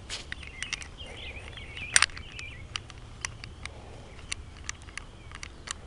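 Small metallic clicks and scrapes of a .32 automatic pistol, a Spanish copy of the Browning 1903, being handled by hand as its barrel is fitted back into the frame, with one sharper metal click about two seconds in.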